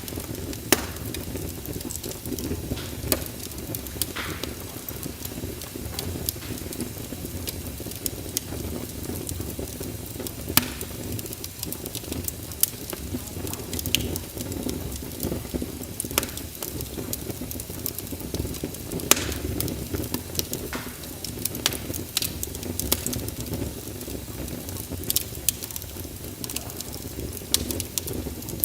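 Fire burning in a fireplace: a steady low rumble with irregular sharp crackles and pops, a few of them louder snaps.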